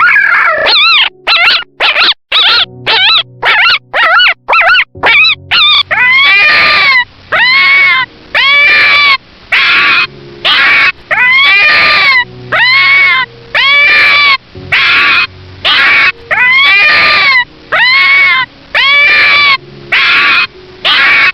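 A young animal giving rapid, high, wavering cries for several seconds, then a long run of short rising-and-falling cries about once a second, over faint background music.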